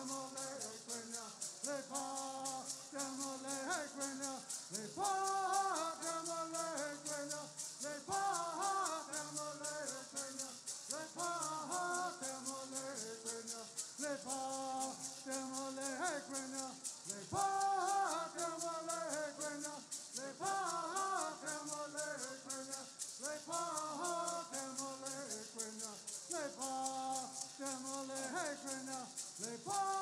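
Bird singing: a line of men singing in unison, starting a new sung phrase about every three seconds, over the continuous shaking of gourd rattles.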